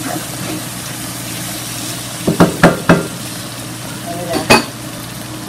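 Food frying in a pot with a steady sizzle as it is stirred. Three quick sharp knocks of a utensil against the pot come about two and a half seconds in, and one more comes about four and a half seconds in.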